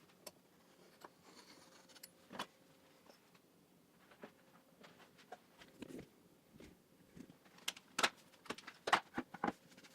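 Razor blade clamped in locking pliers trimming a cork-rubber (crubber) pad along a wooden vise jaw: faint, scattered scrapes and clicks, with a run of sharper clicks near the end.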